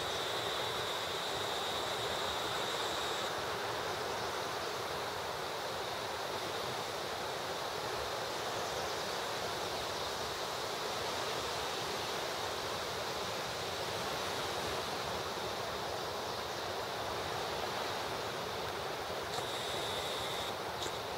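Small waves washing steadily onto a sandy beach, an even surf noise with no breaks, with a faint steady high whine near the start and again near the end.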